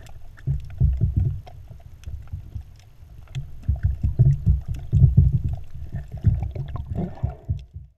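Underwater sound through a camera's waterproof housing: low, uneven rumbling surges of water moving past the housing as the diver swims, with scattered faint clicks.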